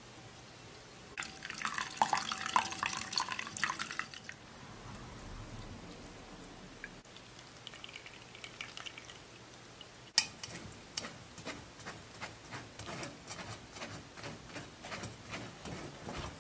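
A wire whisk beating egg and milk in a glass bowl: fast metal clicking and scraping against the glass for about three seconds. Then custard mixture is poured through a mesh strainer, a soft, quieter liquid sound. Near the end comes a sharp click and a string of light taps.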